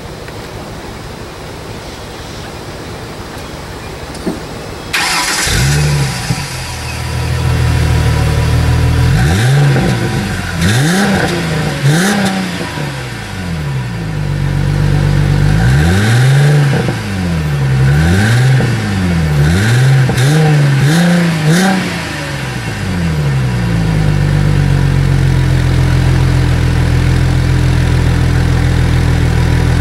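2009 Ford Mustang's 4.0-litre V6 heard at the stock exhaust tailpipe: it starts up about five seconds in, runs briefly, then is revved in a series of about eight quick blips, each rising and falling, before settling into a steady idle for the last several seconds.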